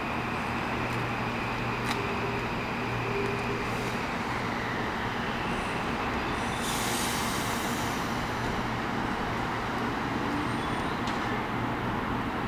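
Kawasaki M8 electric multiple-unit train pulling into the station and slowing to a stop, its steady running noise carrying a whine that falls in pitch over the first few seconds. A brief burst of high hiss comes about seven seconds in.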